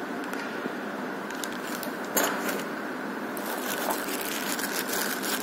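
Plastic packaging bag crinkling and rustling as a wrapped device is handled, with a sharper rustle about two seconds in and a run of crinkles near the end, over a steady background hiss.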